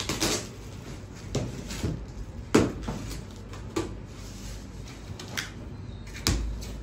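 Scissors cutting through packing tape and cardboard on a box, with plastic wrap crinkling: irregular short snips, scrapes and rustles, the sharpest about two and a half seconds in, and a dull knock of cardboard near the end.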